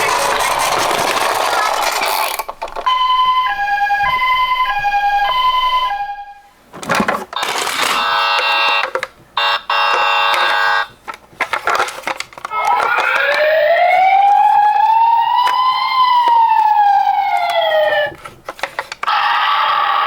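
Toy ambulance's electronic siren sounds. A two-tone high-low ambulance siren repeats for about three seconds. Later a single wail rises and falls over about five seconds. Other electronic sound effects come in between and at the start.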